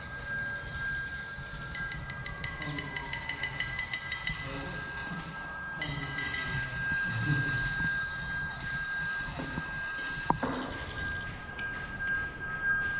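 Steady, bell-like metallic ringing tones, with stretches of rapid, evenly spaced ticking between about two and seven seconds in.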